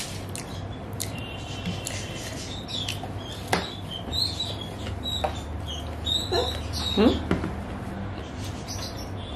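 Mouth sounds of eating with the fingers, a few sharp lip and tongue clicks and smacks, over a low steady hum. Short, high squeaky chirps come and go in the background, with a couple of rising squeals about seven seconds in.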